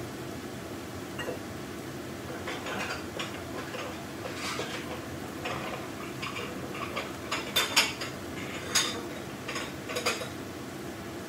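Kitchen dishes and utensils clinking and clattering in short, irregular knocks, the loudest cluster about two-thirds of the way through, over a steady low hum.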